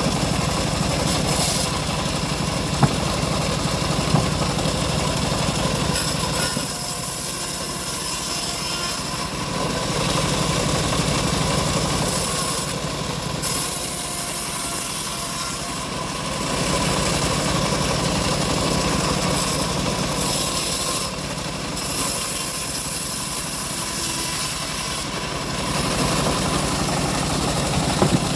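Engine-driven homemade bandsaw mill running steadily with the blade sawing through a teak log; the hiss of the cut rises and falls several times as the load changes.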